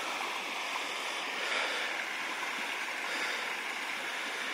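Shallow rocky creek running over stones: a steady rush of water.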